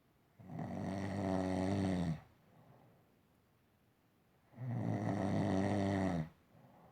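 A man snoring in his sleep: two long snores of nearly two seconds each, about four seconds apart, each followed by a faint breath.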